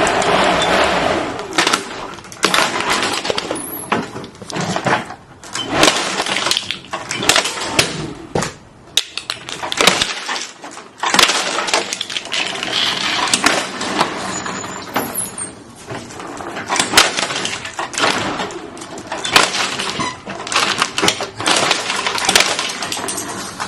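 Running lawnmower chewing up plastic toys: an irregular run of loud cracks, crashes and clattering as the blade hits and breaks the plastic, with the mower's engine under it.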